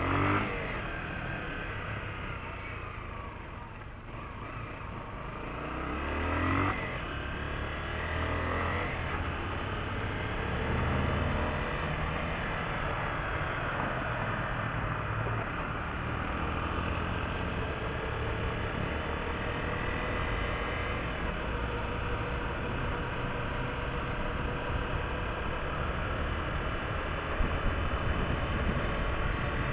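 Trail motorcycle's engine pulling away, rising in pitch as it accelerates with a gear change about seven seconds in, then running steadily at cruising speed.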